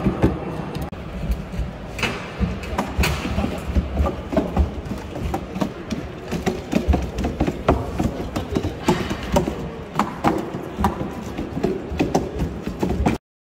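Unitree Go1 quadruped robot's feet thudding and knocking on hollow wooden OSB-board flooring as it walks, in an irregular patter of a few steps a second over a hall's background noise.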